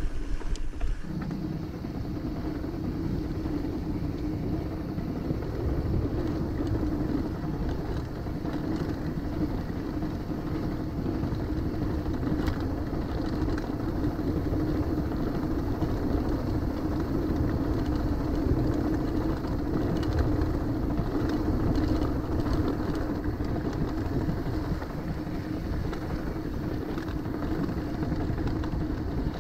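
Trail motorcycle engine running at a steady pitch while it is ridden over a dirt track, with a continuous rumbling noise underneath.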